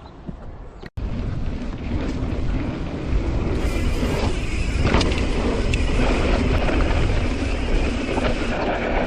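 Mountain-bike riding noise: heavy wind rumble on the microphone, with tyres and bike rattling over a dirt trail and a sharp knock about five seconds in. The sound cuts out briefly about a second in, then comes back louder.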